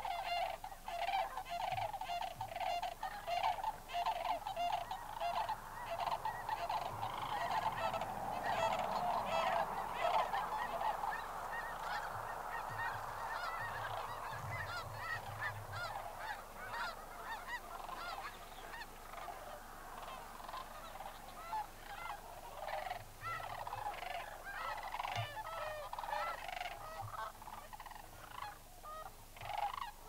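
Flock of lesser sandhill cranes calling: many overlapping calls in a continuous chorus, fullest about a third of the way in.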